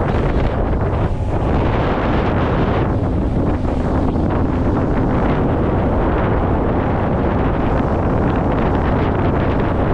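Bass boat under way: wind buffeting the microphone over the steady drone of its outboard motor and water rushing past the hull.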